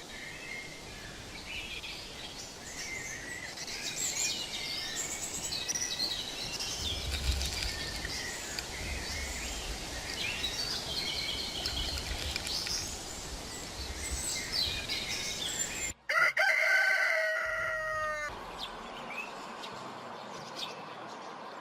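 A chorus of wild songbirds chirping and trilling over the steady hiss of running water. About 16 seconds in the sound cuts abruptly to a rooster crowing once for about two seconds, louder than the birdsong.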